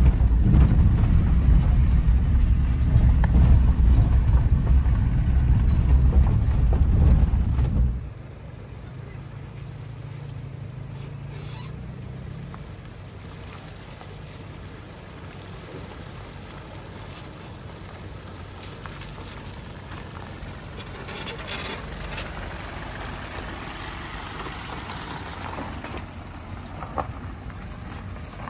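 Mahindra Bolero SUV driving over a rough off-road track: a loud low rumble of engine and road noise that drops sharply about eight seconds in to a quieter, steady running noise.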